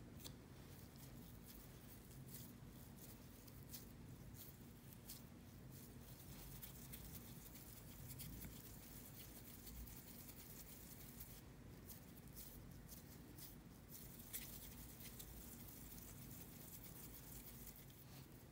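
Faint soft pats and ticks of hands rolling cookie dough into balls between the palms and setting them down on a silicone baking mat, over a faint low hum.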